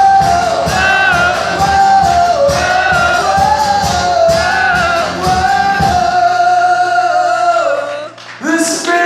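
Live rock band playing the closing section of a song, with a wordless sung melody over a steady drum beat. The drums stop about six seconds in, leaving a held chord, and the melody picks up again near the end.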